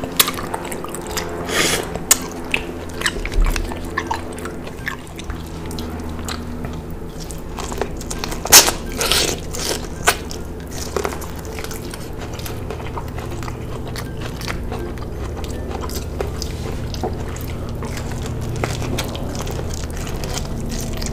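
Close-miked eating: a person biting and chewing shellfish and corn on the cob, with wet mouth sounds and irregular sharp bite crunches, the loudest a little before the middle.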